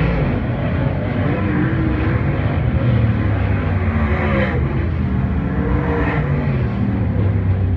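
Several dirt-track race car engines running together on a hot lap, their pitch rising and falling as they accelerate and ease off around the oval.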